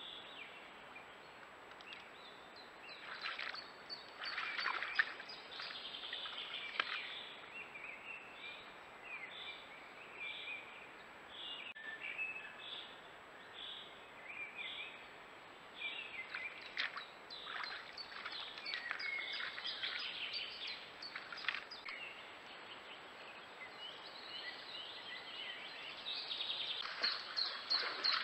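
Several woodland birds singing and calling over a steady faint hiss. A run of evenly spaced short notes, about one a second, comes in the middle, and the calling grows busier near the end. A faint steady high-pitched whine runs underneath.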